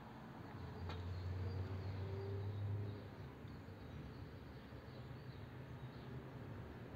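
Faint outdoor ambience with birds chirping in the distance. A low hum swells for about two seconds near the start, with a single click about a second in.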